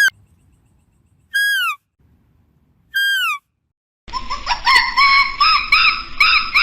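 Animal calls: three short, falling, whistle-like calls about a second and a half apart, then from about four seconds in a busy, overlapping chatter of many quick calls.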